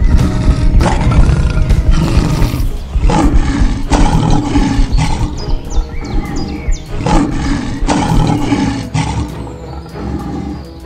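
Repeated lion roars over background music, voicing a cartoon monster with a lion's head.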